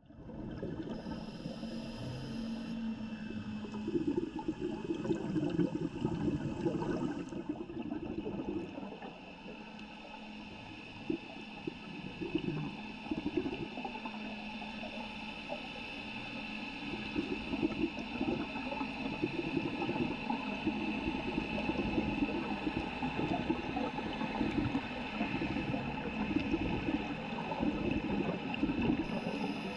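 Underwater ambience heard through a camera's waterproof housing: a steady hiss with crackling and gurgling that swells and fades every few seconds.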